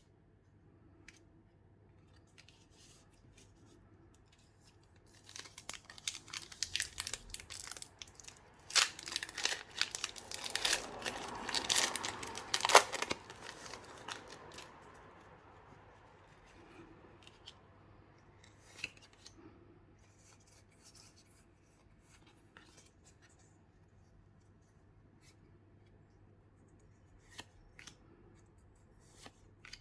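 Plastic and foil card packaging being torn open and crinkled: about five seconds in, a dense run of crackling and tearing lasts around ten seconds, loudest near the end of that run, followed by scattered light clicks and rustles of handling.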